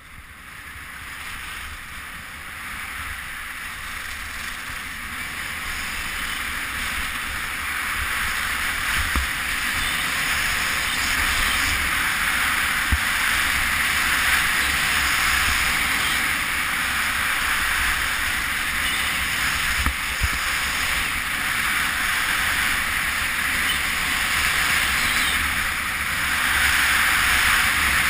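Skis running fast on groomed snow with rushing wind on the camera's microphone, a steady hiss that builds over the first ten seconds or so as the racer gathers speed and then holds. A few short low bumps come through, around the middle.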